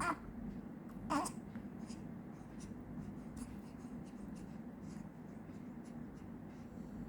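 A one-month-old baby making two short vocal sounds, one right at the start and another about a second in, over a steady low hum and faint rustles of the blanket.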